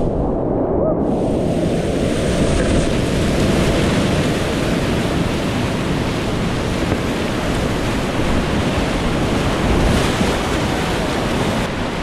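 Whitewater rapids rushing loudly around a kayak, heard close up as a steady roar of churning water. The sound is muffled for about the first second, then opens out.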